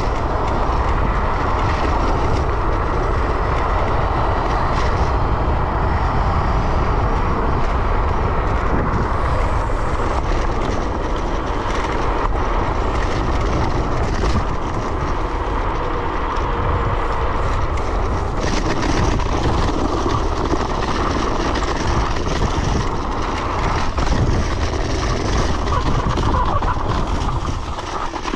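Wind rushing over the microphone and tyre noise from an electric scooter riding along a road at speed: a steady, unbroken noise with a heavy low buffeting. It turns hissier about two-thirds of the way through.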